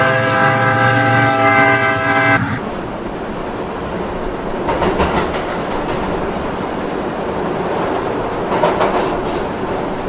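An electric local train's horn sounds one long steady blast that stops about two and a half seconds in. The train then runs on with a steady rumble, its wheels clacking over rail joints.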